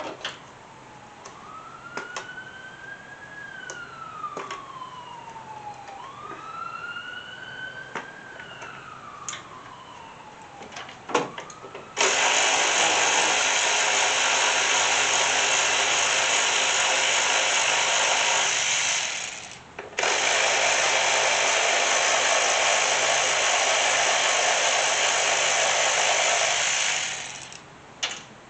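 A distant siren wails up and down with a few sharp clicks of tools. About twelve seconds in, a loud steady rushing hiss starts, stops briefly about halfway, then runs on until shortly before the end.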